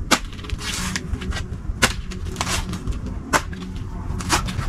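Four sharp knocks, about one to one and a half seconds apart, from a dry coconut being struck while it is husked.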